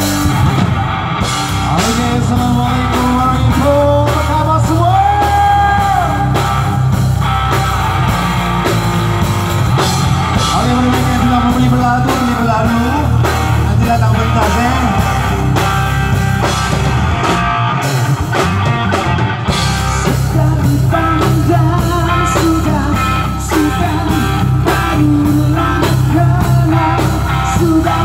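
Live rock band playing loudly: electric guitar, bass guitar and drum kit, with a singer's voice over them.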